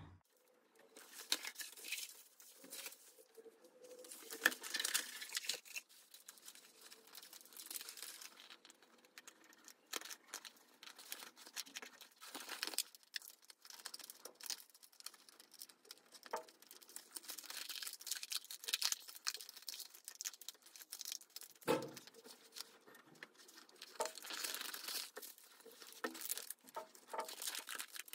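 Self-adhesive marble-print wallpaper being peeled from its backing and pressed down by hand: irregular crackling and crinkling of the paper, with one sharper knock about three-quarters of the way in.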